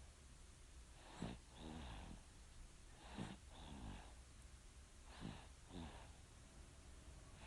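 A 4½-month-old baby snoring faintly in sleep, three breaths about two seconds apart. Each breath is a rasping rush of air followed by a short buzzing snore.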